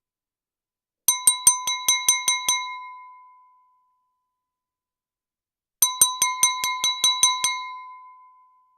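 A knife tapping a drinking glass to call for attention before a toast: two runs of about eight quick, even taps a few seconds apart. Each run rings on as one clear glass tone.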